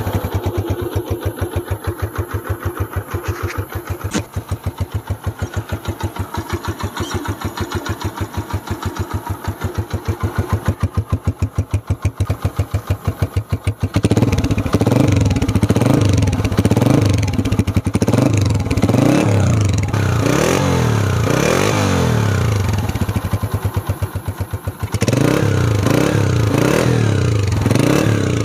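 Restored 2017 Honda CG 125's single-cylinder four-stroke engine running through its stock matte black silencer: a steady, even idle for about fourteen seconds, then the throttle blipped, revving up and down again and again. It drops back to idle briefly a few seconds before the end, then revs again.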